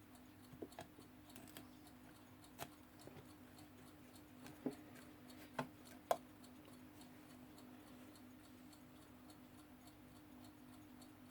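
Jakob Palmtag mechanical alarm clock ticking faintly and quickly as it runs. A few sharp clicks and taps of handling come in the first six seconds, over a steady low hum.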